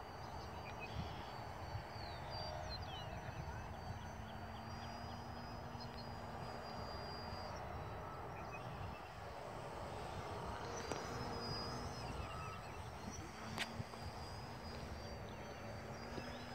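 Faint steady drone of a radio-controlled biplane's motor and propeller high overhead, under outdoor wind noise, with birds calling. A single sharp click comes about two-thirds of the way through.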